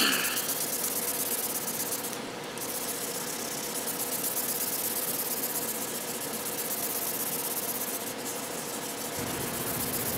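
Wet-or-dry sandpaper rubbing back and forth over an oiled walnut rifle stock: wet sanding with Tru Oil gunstock finish to work up a slurry of wood dust and finish that fills the grain. It is a steady rubbing.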